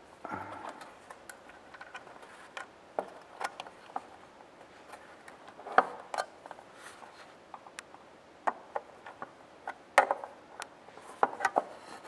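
Irregular small clicks, taps and rustles of hands working thin solid wire onto the screw terminals of a metal receiver housing, with the sharpest taps about six and ten seconds in and a quick run of them near the end.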